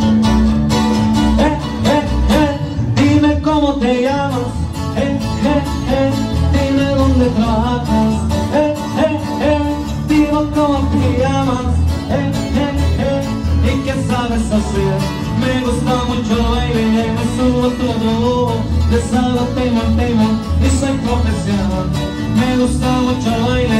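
Live band music played loud for dancing, with a steady bass beat under a moving melody line.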